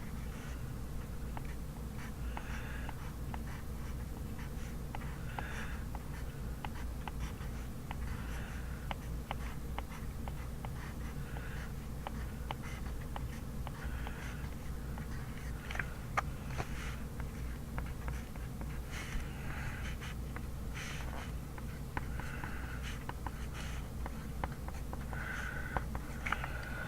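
Handwriting on paper: short scratchy strokes every second or two, with many small ticks, over a steady low hum.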